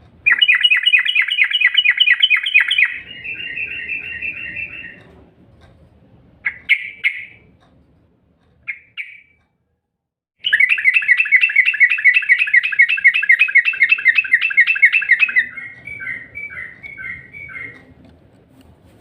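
Yellow-vented bulbul (trucukan) singing, played as a lure call: a fast rattling trill of many repeated notes that slows into separate notes, a few short chirps, then a second long trill about ten seconds in that again slows into spaced notes near the end.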